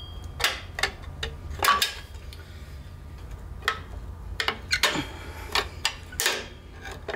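Screwdriver working a brake return spring off the shoes of a Ford tractor drum brake: irregular metallic clinks and scrapes of steel on steel, over a low steady hum.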